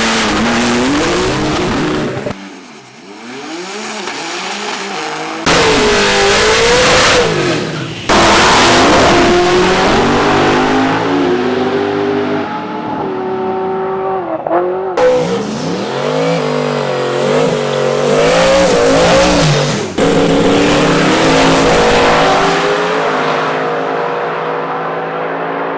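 Drag-race car engines revving and accelerating hard, their pitch climbing and dropping, in a string of short clips that cut off abruptly every few seconds.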